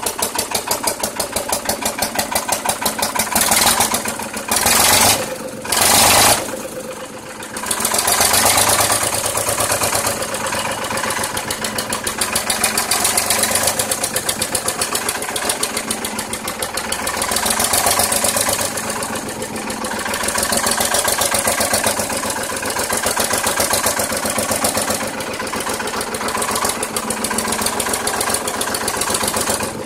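Lister SL3 three-cylinder air-cooled diesel engine running on its first start, with a fast, even knock. Three short, loud rushes of noise come about four to six seconds in.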